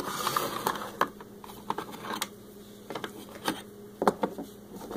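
Hard plastic toy pieces clicking and tapping as they are handled: a toy playset's parts and a small plastic puppy figure knocking together, in a scatter of short, light knocks.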